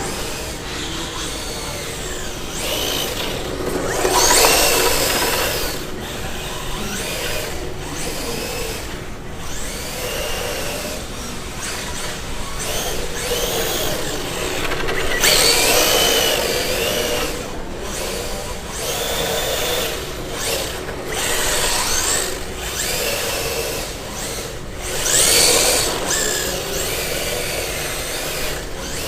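Electric motor of a radio-controlled drift car whining, its pitch rising and falling as it speeds up and slows down, with louder full-throttle surges about four, fifteen and twenty-five seconds in.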